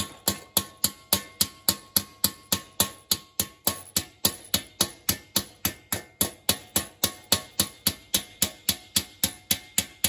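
Hand hammer striking a rivet on a steel cuirass over an anvil, peening the rivet head over with quick, even blows about three a second. A faint metallic ring hangs under the first few seconds of blows.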